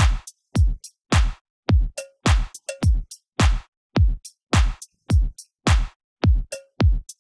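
Background electronic music: a bare drum-machine beat of deep kick drums that drop in pitch, with snare and hi-hat hits, about two beats a second and no melody.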